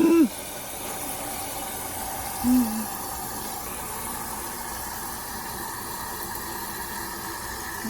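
Keurig coffee maker hissing steadily with a faint hum, heating its water before a brew. A short vocal sound breaks in about two and a half seconds in.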